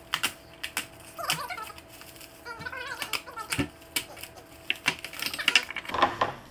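Clear plastic packaging crinkling and rustling in quick, irregular crackles as it is pulled and torn off a new skateboard deck and trucks, busiest near the end.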